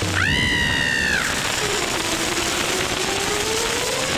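Cartoon chicken letting out a high shriek for about a second, falling in pitch as it ends, over a steady hiss. A faint tone rises slowly under the hiss in the second half.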